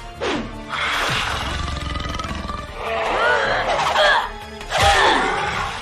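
Cartoon fight soundtrack: action music under fight sound effects. A falling whoosh comes just after the start and another about five seconds in, with a rushing stretch and wavering effect tones between them.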